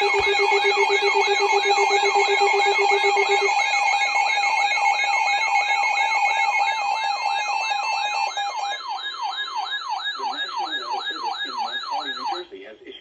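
Several electronic alert alarms sounding together: a siren tone sweeping up and down a little over twice a second over steady and warbling beeps. A pulsing low beep stops a few seconds in, and the rest cut off suddenly about half a second before the end. The alarms signal an incoming severe thunderstorm warning.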